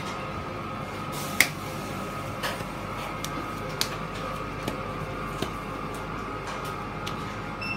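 Steady machine hum of a small shop, with a few light clicks and taps as slices of cheese are laid by hand onto bread halves on the counter. The sharpest tap comes about a second and a half in.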